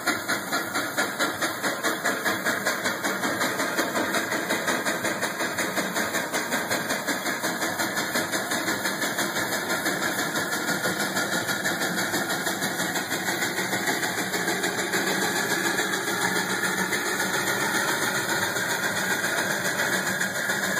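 Citroën C1 engine with a de-cat exhaust manifold, heard from inside the car under hard acceleration. The note climbs slowly as the car gathers speed, with a steady rhythmic throb.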